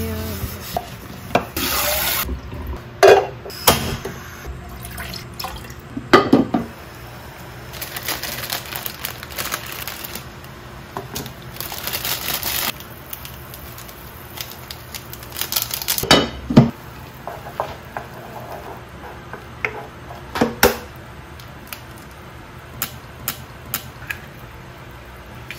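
Kitchen sounds: a tap running in bursts and a pot being scrubbed and rinsed in a stainless steel sink, with several loud clanks and knocks of the pot and utensils. Near the end come a few light taps as an egg is cracked on the pot.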